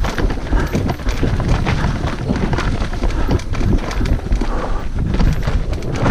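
Mountain bike descending a rough, rooty trail: tyres, chain and frame clattering and knocking irregularly over roots and rocks, over a steady low rumble of wind on the microphone.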